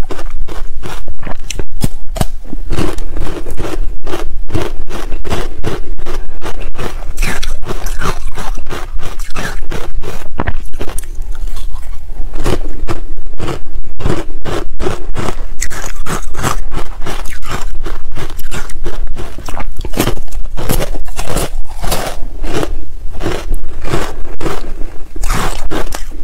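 Close-miked crunching of matcha-coated ice being bitten and chewed: a dense, unbroken run of sharp cracks and crackles, along with chopsticks scraping and digging into the frozen ice in the tray.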